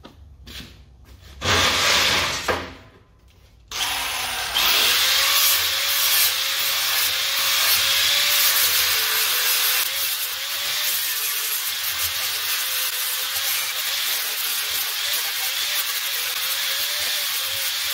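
A grinder starts about four seconds in and runs steadily, grinding plasma-cut slag off the edges of a steel piece, its whine wavering in pitch as the load changes. Before it starts there are a few short handling noises.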